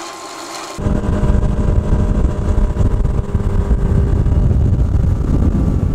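A Suzuki 115 outboard motor running at speed, with wind and water rushing past the boat. The loud running cuts in suddenly under a second in, after a short, quieter mechanical sound.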